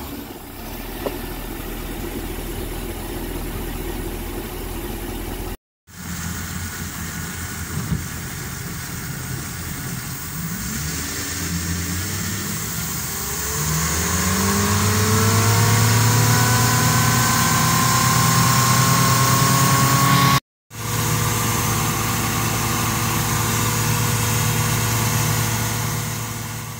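Freshly rebuilt Mercury marine 305 small-block Chevy V8 running steadily, then, after a cut, driving the boat. Its pitch climbs as it speeds up about halfway through, and it then holds steady at speed.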